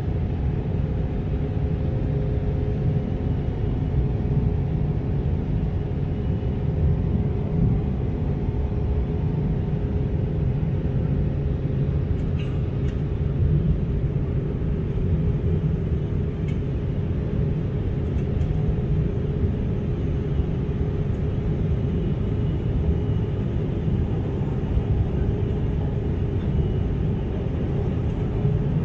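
Steady engine and airflow noise inside a jet airliner's passenger cabin during the climb after takeoff: mostly a low rumble, with a few faint steady hum tones over it.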